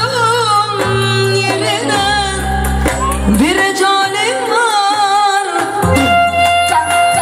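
Live Romani wedding dance music: a singer's wavering, ornamented melody over a band with a steady bass line, which drops out for a couple of seconds about halfway through.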